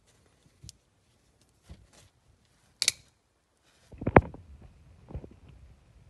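Metal clicks and snaps from a handmade push-button, back-lock Buck-style folding knife being worked in the hand. There are a few light clicks, then a sharp double click about three seconds in and the loudest knock, with a short rattle, a little after four seconds, followed by another knock.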